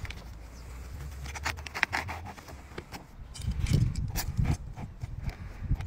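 Hand work on artificial turf: short scratchy scrapes and clicks of a tool and fingers on the plastic grass fibres, then a run of dull knocks from about halfway through as the strip is pressed and tapped down into the seam.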